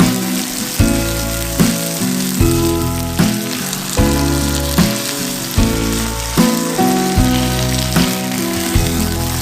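Food sizzling as it fries in a pan, under background music with a steady beat.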